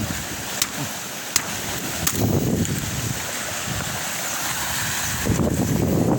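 Waves washing over a rocky shore, with wind on the microphone and a few sharp snaps of dry twigs underfoot in the first second or so. The rush grows louder near the end.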